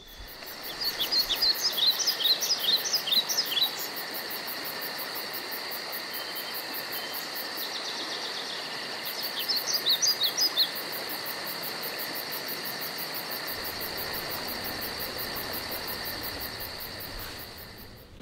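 Outdoor insect chorus, a steady high drone, with a bird singing a quick run of short chirps twice: once near the start and again about halfway through. The whole ambience fades out near the end.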